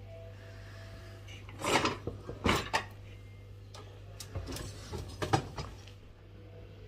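Dishes and the wire racks of a loaded dishwasher clinking and rattling as they are handled, in two short bursts of clatter, about two seconds in and again around five seconds in, over a low steady hum.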